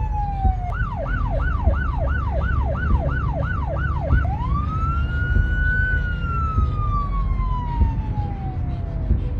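Emergency vehicle siren: a falling wail, then a fast yelp of about nine quick up-and-down sweeps, then a rise into a long, slowly falling wail that stops near the end. A steady low rumble runs underneath.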